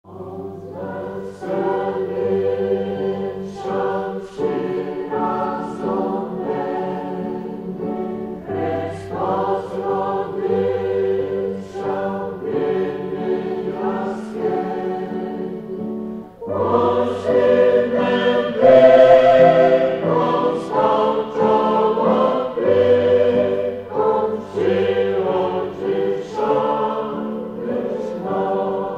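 Choir singing a Ukrainian Christmas carol (koliadka), several voices over long held low notes. It begins suddenly and swells louder about halfway through.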